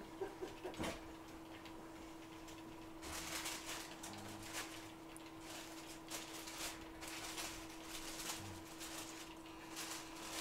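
Hot air rework station blowing on a CPU to solder it down onto a phone logic board: a soft hiss with faint crackles that rises about three seconds in, over a steady low hum.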